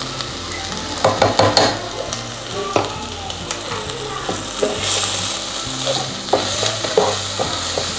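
Onions, green chillies and spices sizzling in hot oil in a pot, with a wooden spatula stirring and scraping and a few clinks of a spoon against the pot. The sizzle grows louder about five seconds in.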